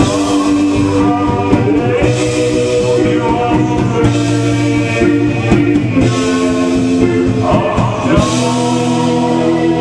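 Live band playing a song, with a singer's voice over the instruments.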